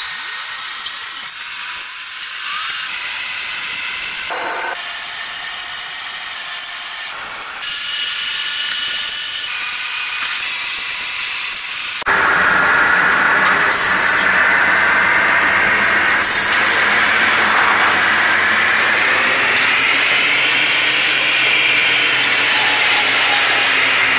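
Hissing from a steel furnace pour. About halfway it gives way to the louder running of a hot-rolling mill line: the steady whine of the roller-table drive motors over a low electrical hum as a red-hot bar runs along the rollers, the whine rising a little and falling back near the end.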